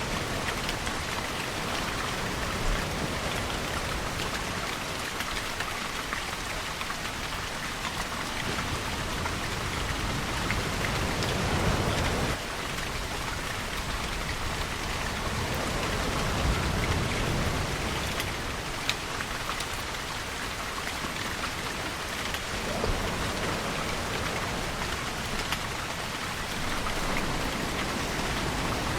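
Steady rainfall with scattered sharp drop ticks. It swells louder in the low end a few times, cutting back sharply after one swell about twelve seconds in.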